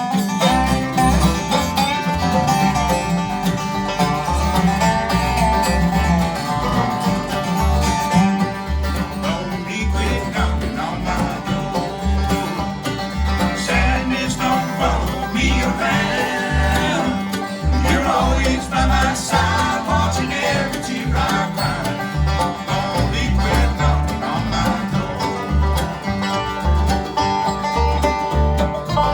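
Bluegrass band playing live with banjo, mandolin, guitar, dobro and bass in an instrumental passage, the bass notes pulsing steadily on the beat under the picked strings.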